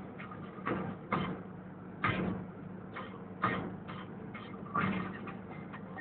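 Inside a MAN TGA 410 truck cab on the move: the diesel engine's steady drone under a run of irregular rattles and knocks from the cab, with about five sharper knocks among them.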